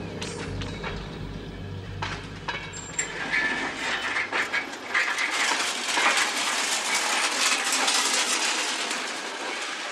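Motorised rail trolley running along the track, its wheels clicking and rattling over the rails. A low rumble fades out about four seconds in, leaving a loud hissing, rattling rail noise.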